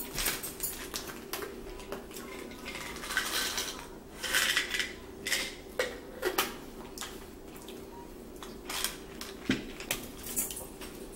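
Irregular clinks, taps and knocks of plates and cutlery being handled during a meal, with some rustling in the middle, over a faint steady hum.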